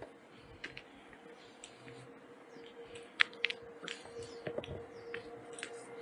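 Footsteps crunching and rustling through dry grass and weeds, heard as irregular snapping clicks, the sharpest about three seconds in. A faint steady tone runs underneath.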